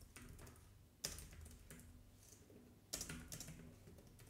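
Faint typing on a computer keyboard in short runs of keystrokes, loudest about a second in and again about three seconds in.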